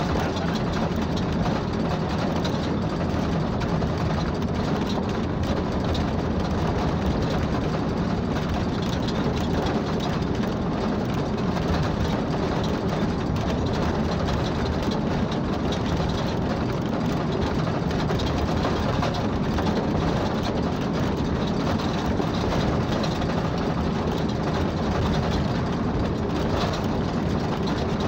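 Steady engine and road noise of a moving vehicle, heard from on board at a constant cruising speed, with a low rumble and no gear changes or other events.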